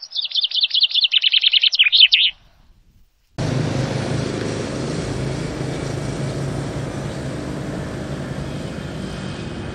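A songbird's rapid trill of short downward-sweeping chirps, about ten a second, lasting roughly two seconds. After a short gap, a steady outdoor background rumble with a low hum takes over for the rest of the time.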